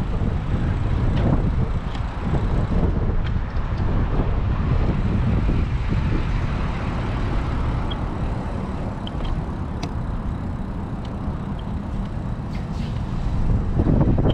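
Wind buffeting the microphone of a camera carried on a moving bicycle: a steady, low rumble, with a few faint clicks and rattles.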